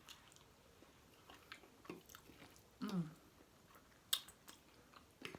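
A person chewing a mouthful of chicken egg foo young, with soft wet mouth clicks and a brief hum about three seconds in.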